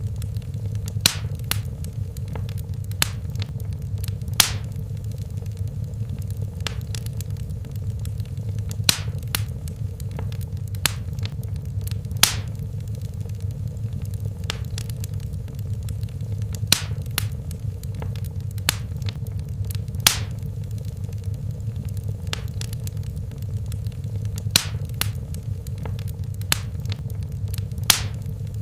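Wood fire burning in a fireplace: a steady low rumble of the flames with sharp, irregular crackles and pops, roughly one or two a second, a few louder than the rest.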